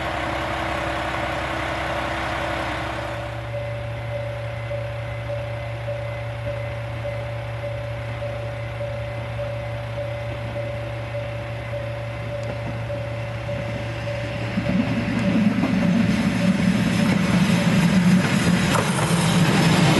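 Chizu Express HOT3500-series diesel railcar. Its engine idles for the first few seconds. Then, after a change of scene, a steady pulsing tone and low hum carry on, and from about 15 s in a railcar's diesel engine grows louder as it approaches.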